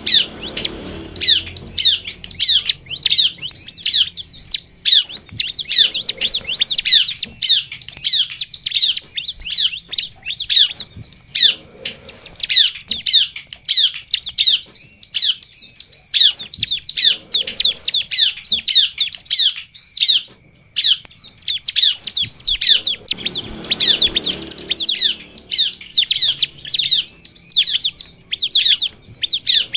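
Bar-winged prinia (ciblek) singing persistently: rapid runs of sharp, high, downward-sweeping chirps, repeated again and again with only brief breaks.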